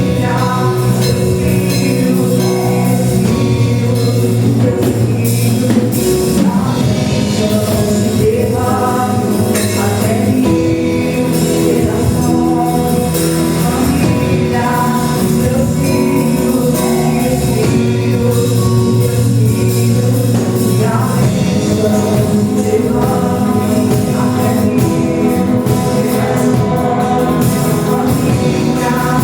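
Gospel worship music: singing with voices that sound like a choir over a full band accompaniment, continuous and steady in loudness.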